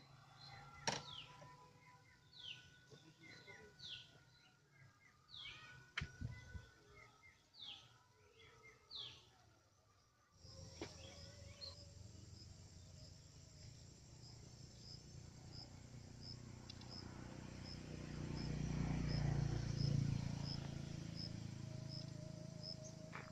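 Outdoor countryside ambience. For the first ten seconds birds call with short descending whistles, about one a second, with a couple of sharp clicks. After an abrupt change, high chirps repeat evenly about twice a second over a low rumbling noise that swells and is loudest about twenty seconds in.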